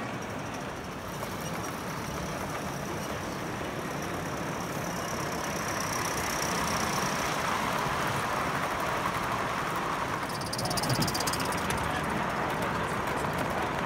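Gauge 1 model train running past on the track: a steady rolling noise of wheels on rail that grows louder as the wagons and coaches pass close by. A rapid ticking joins in about ten seconds in.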